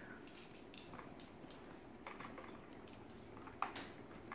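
Small plastic balls of a Hungry Dino game clicking faintly against each other and the plastic board as they are picked out by hand and counted: a few scattered light clicks, with a sharper one about three and a half seconds in.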